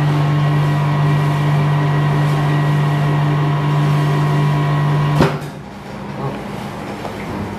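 Chamber vacuum-packing machine's pump running with a steady low hum while it draws the air out of the chamber. About five seconds in it stops with a short clunk as the cycle ends.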